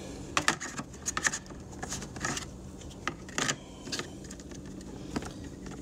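Scattered clicks and brief rustles of a plastic switch panel being handled and pressed into place, at irregular times, over a faint steady hum.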